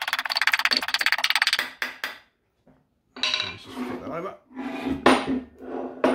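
A steel panel hammer tapping rapidly, about ten blows a second, to dress down the lip of a sheet-steel panel clamped in a steel jig; the tapping stops about a second and a half in. After a short gap come lighter knocks and scrapes as the steel jig plates are handled.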